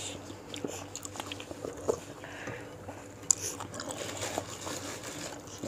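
A person chewing a mouthful of bakso meatball, with small wet mouth clicks and a couple of sharper clicks.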